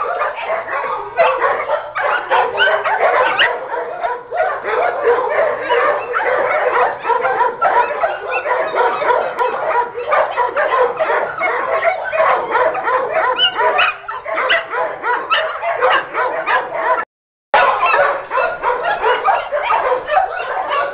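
Many kennel dogs barking and yipping over one another in a continuous din. The sound cuts out completely for a moment about seventeen seconds in.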